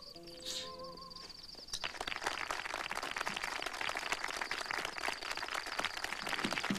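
The last held notes of a soprano aria with orchestra fade out. From about two seconds in, a crowd of listeners applauds with dense, steady clapping.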